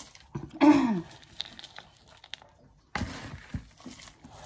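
Crumbly rustling and crunching of potting soil being handled and pressed in around monkey tail cactus stems in a bowl, loudest a little after halfway. About a second in, a short sound slides down in pitch like a brief hum, the loudest moment.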